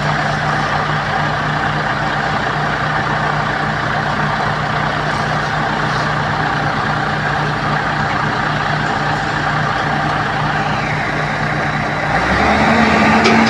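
Tracked excavator's diesel engine idling steadily. About two-thirds of the way through, its pitch steps up and it gets louder as the engine speed is raised, then holds steady.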